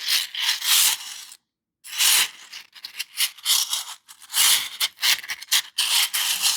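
3D-printed plastic fidget toy being worked in the hand, its many small interlocking plastic pieces rattling and clicking against each other in repeated bursts, with a short silent break about a second and a half in.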